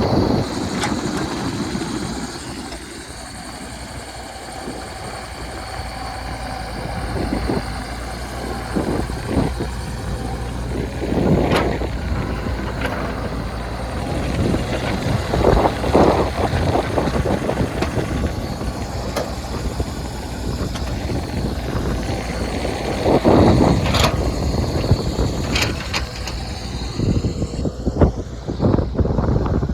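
Diesel engine of heavy earthmoving equipment running steadily, with several short louder surges as the machine works.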